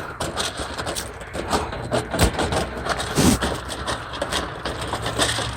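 Irregular clicks, knocks and scraping as a rabbit hutch's food container, clogged by rain-wet feed, is worked loose by hand, with a couple of louder knocks midway.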